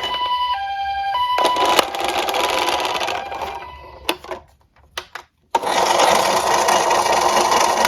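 A two-tone siren stepping back and forth between two pitches, then the rattle of a diecast toy car's wheels rolling down a mini slope, fading away. After a few clicks and a brief silence about four to five seconds in, a louder rolling rattle starts abruptly, with faint siren tones under it.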